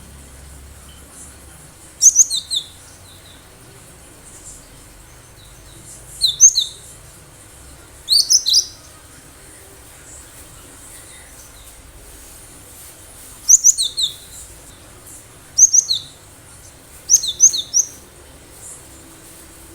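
Cinereous tit (gelatik batu) singing: six short bursts of quick, high, sharp notes, each burst three or four notes, coming a few seconds apart.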